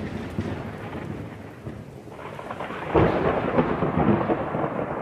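Thunderstorm: the rumble of a thunderclap dies away, then a second roll of thunder breaks about three seconds in, over a steady hiss of rain.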